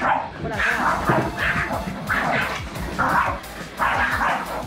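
Small dogs barking in a scuffle over a treat-dispensing ball, a quick run of barks about every half second, with background music underneath.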